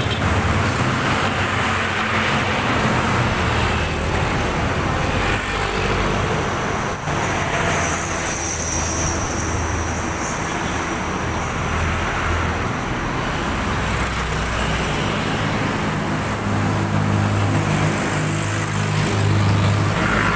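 Steady road traffic noise with motor-vehicle engines running close by, the engine hum growing louder near the end. One short click comes about a third of the way through.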